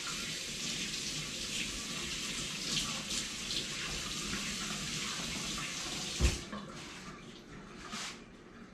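Kitchen sink tap running steadily as sticky dough is washed off hands under it. About six seconds in there is a single sharp knock, and after it the water sound drops away.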